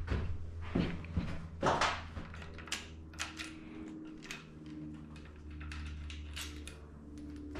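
Scattered light clicks and knocks of small metal engine parts being handled and set down on a workbench, over a steady low hum.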